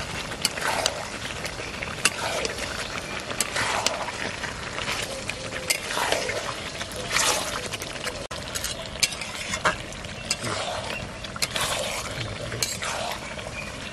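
Metal spatula stirring a thick, lumpy chicken curry in a steel kadai, with a scraping sweep about once a second and sharp clinks of metal on the pan. The curry simmers with a steady sizzle underneath.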